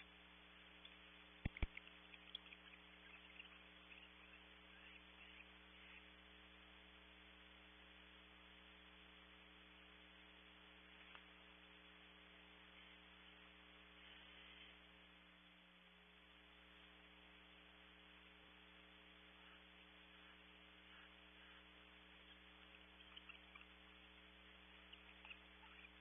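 Near silence over a steady electrical mains hum on the nest-cam's audio. Faint scratching from barn owls moving in the tree cavity comes in the first few seconds and again near the end, with one sharp click about a second and a half in.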